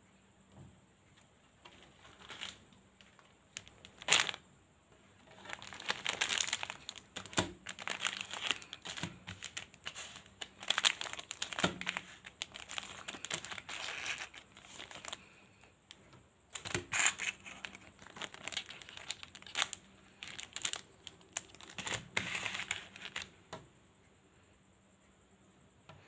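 Plastic Choki Choki chocolate paste sachets crinkling as they are handled and laid out on a table, in irregular bursts with a few sharp clicks as packets are set down.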